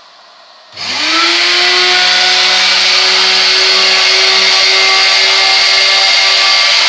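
Motor of an As Makina Leon profile cutting and milling machine switching on about a second in, spinning up quickly and then running steadily at an even, high whine.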